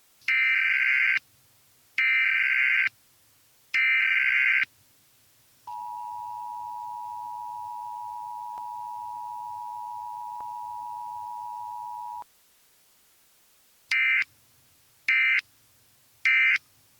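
Emergency Alert System tones: three roughly one-second bursts of buzzing SAME data tones, then a steady two-tone attention signal for about six and a half seconds, then three short end-of-message data bursts.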